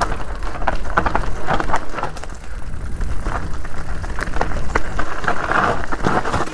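Specialized Turbo Levo SL electric mountain bike ridden over a rough trail: tyres on dirt and rock with an irregular clatter of rapid knocks and rattles from the bike, over a steady low rumble.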